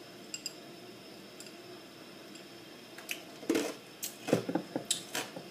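Quiet kitchen room tone, then from about three seconds in a run of sharp knocks and clicks as items are handled and set down on a kitchen counter.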